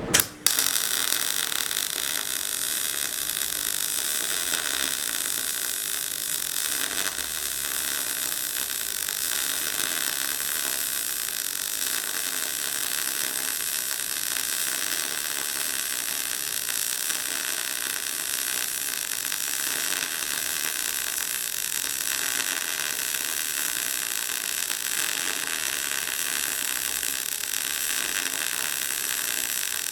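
MAG welder arc burning steadily while a bead is laid, a continuous hissing crackle, after a short sharp burst as the arc strikes at the start.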